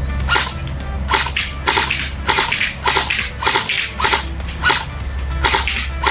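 Lancer Tactical Interceptor airsoft electric rifle firing on full auto in short bursts: a string of sharp cracks, several a second.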